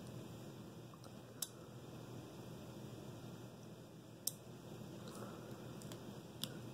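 Small relay on a water level controller module clicking three times, a few seconds apart, each click sharp and short. It is switching a lamp on and off as the probe wires touch and leave the water.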